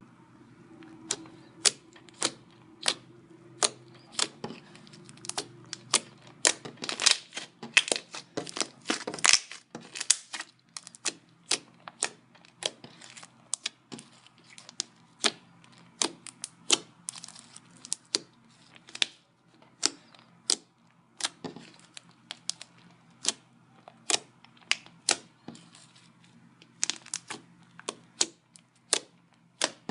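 Jiggly tofu slime being handled, giving sharp, irregular clicking pops, a few a second, thickest a few seconds in.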